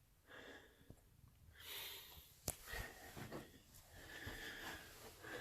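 Faint breathing of a person close to the microphone, in soft repeated breaths, with a single sharp click about two and a half seconds in.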